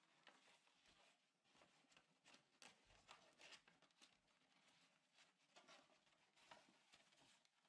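Faint, irregular rustling and crinkling of origami paper as sheets are handled, tucked and folded by hand.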